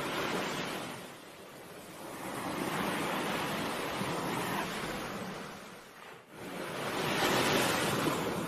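Surf breaking and washing up a pebble beach, surging and falling back in slow swells, loudest near the end.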